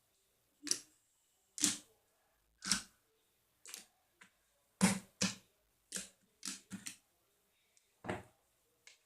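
Slime being squeezed and stretched by hand, making a series of sharp clicks and pops, about a dozen at irregular intervals.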